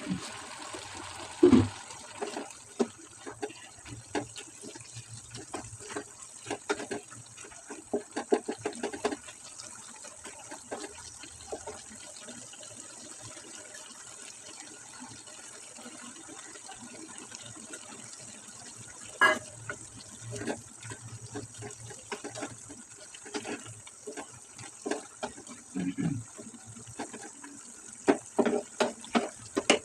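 Cabbage cooking in a pan: a steady high sizzle, with scattered clatters and scrapes of a utensil against the pan.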